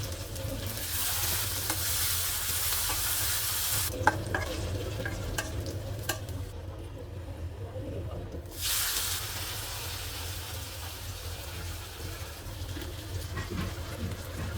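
Food frying in oil in a pan, sizzling, while a spatula stirs it with a few sharp clinks against the pan. The sizzle drops away for a couple of seconds about halfway through, then comes back.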